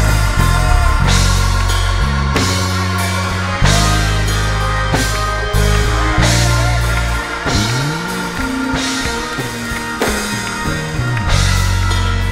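Live band music: a drum kit with repeated cymbal crashes over sustained bass notes. Around the middle the bass thins out and slides in pitch for a few seconds before the full low end returns.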